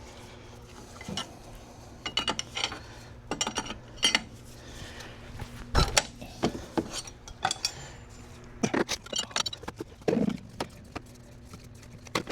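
Scattered metallic clinks and taps of hand tools on the engine's fan clutch, fitting a fan clutch wrench, with a heavier knock about six seconds in.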